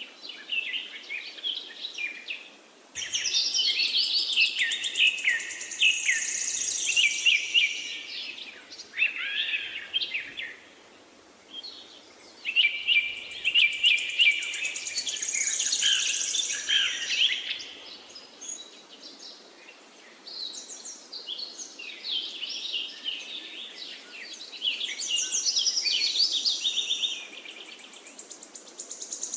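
Several songbirds chirping and trilling at once, in bouts a few seconds long with brief lulls, over a faint steady hiss.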